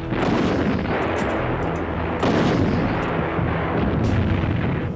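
Battle sound effects: a dense, continuous din of gunfire and artillery fire.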